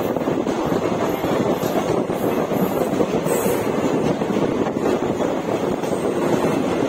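ICF passenger coach running at speed on the Indian Railways main line: a steady rumble of wheels on track, with no distinct rail-joint clicks.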